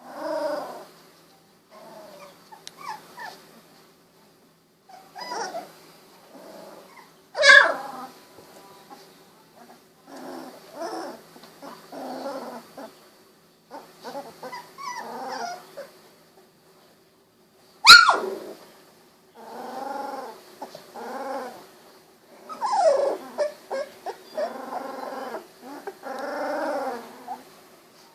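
16-day-old Golden Retriever puppies crying in a series of short pitched calls, some falling in pitch, with two sharp, loud yelps, one about a quarter of the way in and one about two-thirds through.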